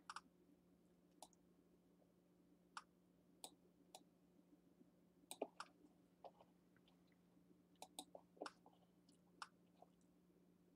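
Near silence with faint, irregularly spaced computer-mouse clicks over a faint steady low hum.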